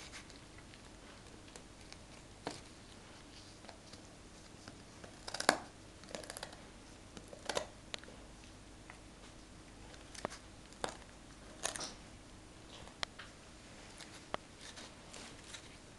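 A golden retriever chewing food: scattered short crunches and clicks, the loudest about five and a half seconds in.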